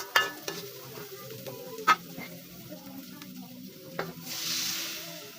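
Food stir-frying in a pan: a spatula stirs and knocks against the pan a few times over a low sizzle, and the sizzle swells louder for about a second near the end.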